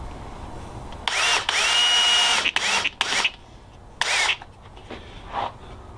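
DeWalt cordless drill driving a screw through a small wooden spacer block into a board. About a second in, the motor runs for roughly a second and a half, its whine rising and then holding steady. Three short trigger bursts follow as the screw is seated.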